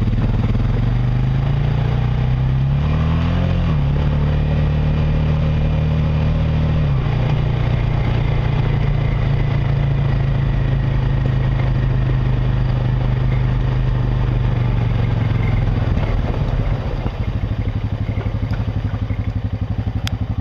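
Honda Rancher 420 ATV's single-cylinder four-stroke engine pulling under way. Its pitch climbs, then drops sharply about three and a half seconds in and steps down again around seven seconds in as it shifts up. It then runs steady until the throttle eases near the end.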